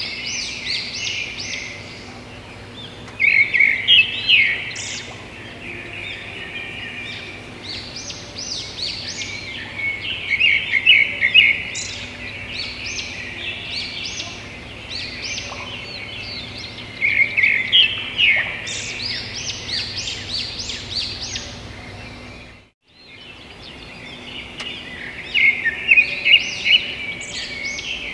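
Birds chirping and twittering in a dense stream of short high calls, with louder flurries every several seconds, over a faint steady hum. The sound breaks off for a moment near the end, then resumes.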